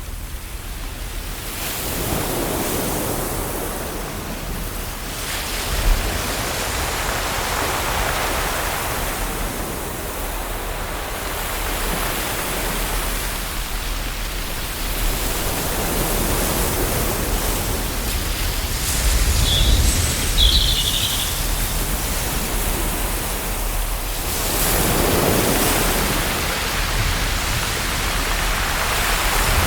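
Ocean waves washing on a shore: a continuous hiss of surf that swells and recedes every several seconds.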